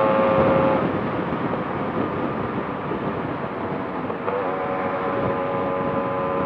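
Yamaha RX two-stroke single-cylinder motorcycle engine running at steady high revs at highway speed, with wind and road noise. The steady drone drops out about a second in, leaving mostly wind rush, and comes back, rising slightly, a little after four seconds.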